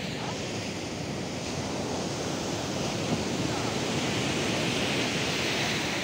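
Steady noise of sea surf breaking on the beach, mixed with wind buffeting the microphone; it grows a little louder in the second half.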